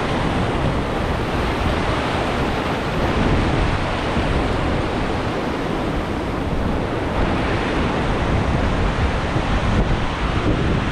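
Ocean surf breaking and washing over a rocky shoreline, a steady rush of water, with wind buffeting the microphone.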